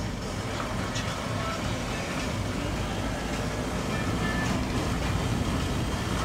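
A motor vehicle running along a road: steady engine and road noise with a few light rattles.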